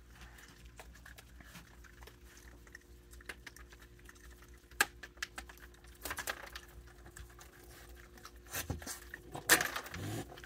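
Raccoons and a baby skunk feeding from seed dishes on a wooden deck: scattered faint clicks and crunches of chewing and picking at peanuts and seed, with a sharp click a little before the middle and a few short, louder rustles near the end.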